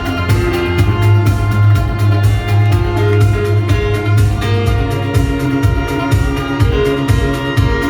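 Loud music with a steady, fast beat, heavy bass and a layered melody.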